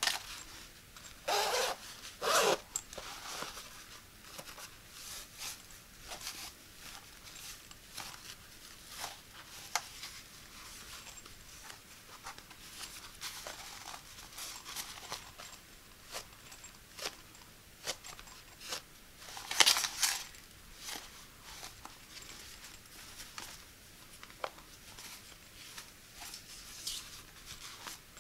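The zipper on a foam knee pillow's fabric cover being drawn in short, sharp zips, twice near the start and again about twenty seconds in. Between the zips come soft rustles and taps as the cover and foam are handled.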